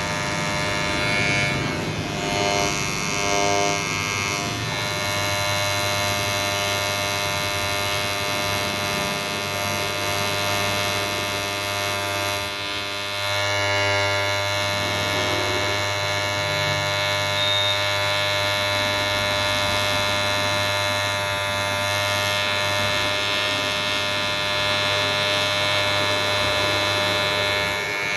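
Ubeator cordless electric hair clipper running continuously with a steady, even buzz.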